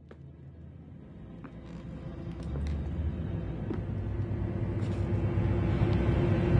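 Low rumbling drone swelling steadily louder, with scattered faint clicks and crackles on top: the opening swell of a dark film-score cue.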